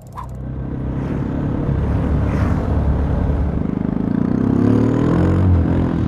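Motorcycle engine pulling and accelerating, its pitch rising over the second half. It fades in at the start and fades out at the end.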